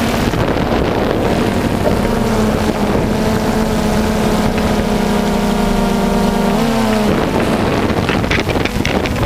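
Motorboat engine running at a steady pitch, with wind buffeting the microphone; about seven seconds in the engine note drops away as it is throttled down.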